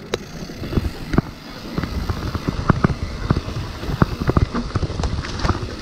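Dartmoor Blackbird mountain bike rattling down a rough trail: a dense, irregular clatter of sharp knocks and clicks over a steady low rumble.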